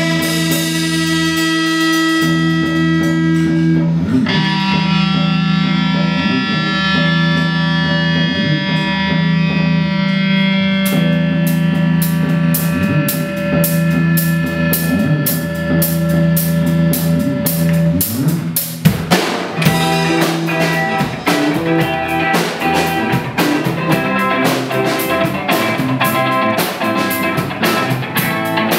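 Instrumental rock music with no vocals: long held chords over a steady low bass, then about two-thirds of the way through a drum kit comes in with fast, busy cymbal strokes and the playing gets denser.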